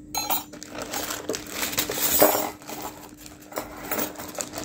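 Hands rummaging in a cardboard accessory box: plastic parts bags crinkling and small metal brackets clinking against each other, irregular rustles and clinks, loudest about two seconds in.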